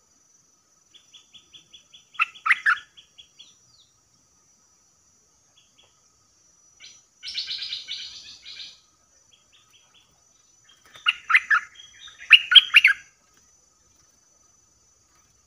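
Stripe-throated bulbul calling in three bouts of short, bubbly phrases, with a harsher chattering burst between them.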